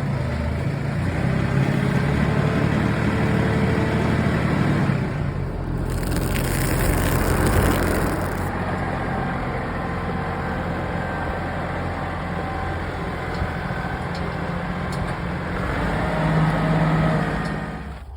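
A vehicle engine running steadily, with a brief rushing hiss about six seconds in, then dropping away at the very end.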